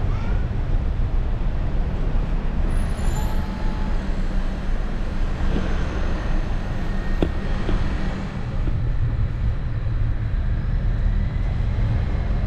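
Tourist road train's engine and rolling noise, a steady low rumble as it drives through town streets, with a few light knocks and rattles about halfway through.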